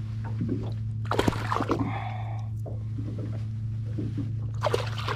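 Steady low hum of a boat motor, with clusters of splashy knocks about a second in and again near the end.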